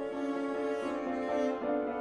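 String quartet and piano playing a slow passage of held chords that shift a few times, with no voice.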